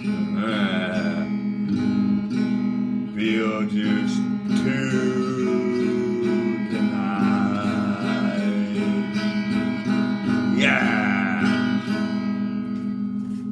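Acoustic guitar music: strummed chords over a steady low drone, with a few sliding high notes.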